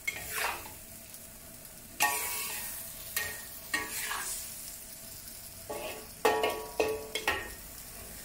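Metal spatula scraping and tossing beancurd skin and vegetables around a wok, over a low sizzle. The strokes have a slight metallic ring; they come a second or so apart at first and quicker near the end.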